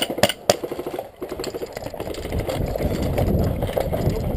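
A few sharp airsoft pistol shots in the first half-second, then a steady low rumble with fast rattling for the rest.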